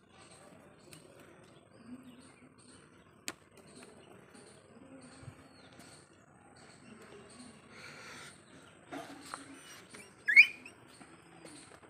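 Puppies play-fighting, with one short, high yelp rising in pitch from a puppy near the end; faint regular high chirping behind.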